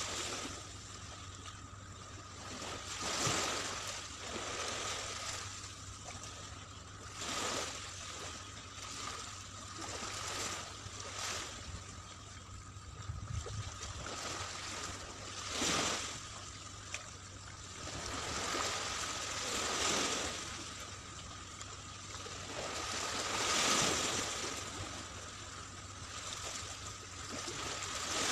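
Small waves lapping onto a sandy beach, the wash swelling and fading about every four seconds.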